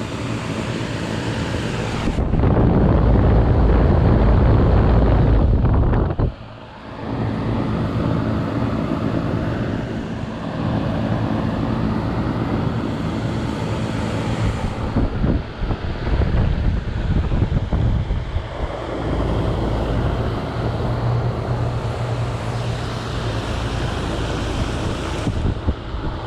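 2004 Tempstar 4-ton central air-conditioner condenser running steadily, a low compressor hum under the rush of the condenser fan. Wind noise on the microphone swells over it a couple of seconds in and again near the end, with a brief drop in level about six seconds in.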